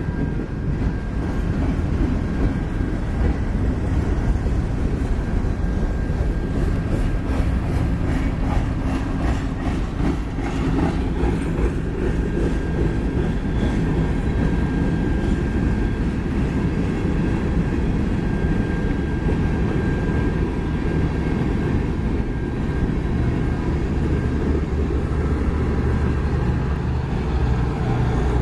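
Cars of a mixed freight train (autoracks, refrigerated boxcars, covered hoppers) rolling past on steel wheels: a steady rumble of wheels on rail, with a run of clicks over rail joints about a third of the way in.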